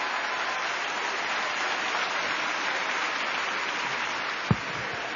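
A congregation applauding steadily, with a single short thump about four and a half seconds in.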